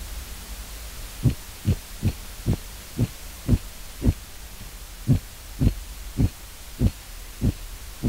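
Painted goby thumps in an underwater recording: a run of short, low thumps about two a second over a steady low hum, with a break of about a second near the middle. These are the sounds male painted gobies make in courtship.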